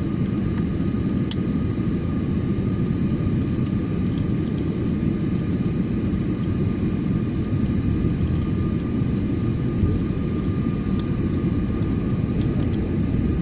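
Airliner cabin noise in flight: a steady low rush of engines and airflow heard from inside the cabin, with a faint, steady, higher tone running through it.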